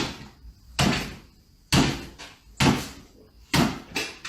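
A series of sharp bangs, about one a second, six in all, each dying away quickly, like a door or cupboard door being knocked against its frame over and over.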